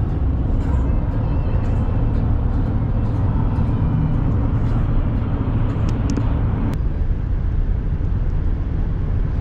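Steady road and engine noise inside a pickup truck's cab at highway speed: a deep, even rumble with tyre hiss above it, which softens slightly about seven seconds in.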